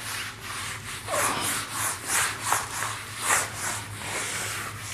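Whiteboard eraser rubbing marker ink off a whiteboard in quick back-and-forth strokes, a dry swishing about twice a second, over a steady low electrical hum.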